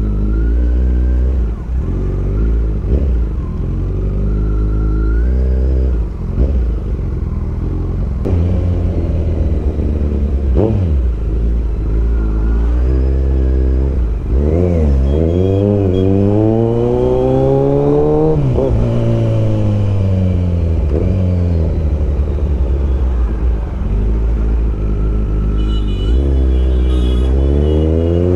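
Kawasaki Z900's inline-four engine running under the rider at low speed, its note rising and falling with the throttle. It climbs steadily for a few seconds past the middle, falls off sharply, then climbs again near the end.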